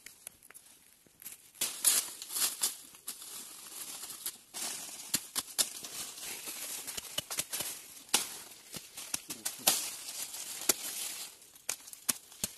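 Dry leaves and undergrowth rustling and crackling, with irregular sharp snaps and knocks, as someone moves through the leaf litter and works at the ground with a machete. It starts about a second and a half in.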